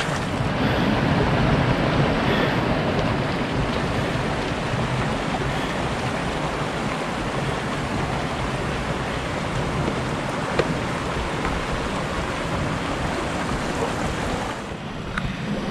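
Steady rushing of water running from a natural hot spring.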